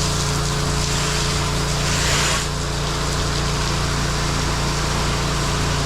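Pressure washer's engine running steadily under the hiss of the water spray. The spray noise grows louder for a second or two and then drops back.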